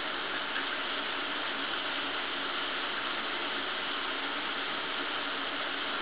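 Shower running behind a closed shower curtain: water spraying down in an even, constant hiss.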